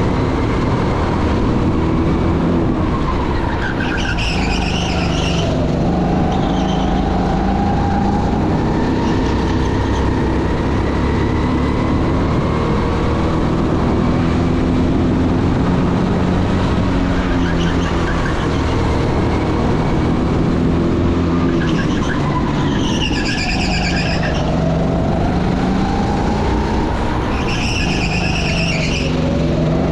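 A car engine running hard, its pitch rising and falling as it revs and slows, with bursts of tyre squeal about four seconds in, around twenty-three seconds and again near the end.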